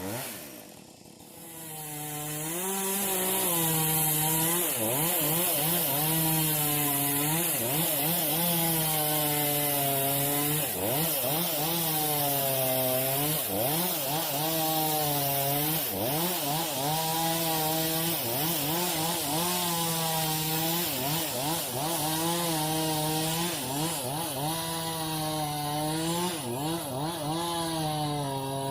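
Chainsaw running at high revs. It builds up over the first couple of seconds, then its pitch dips and recovers every second or two as it works.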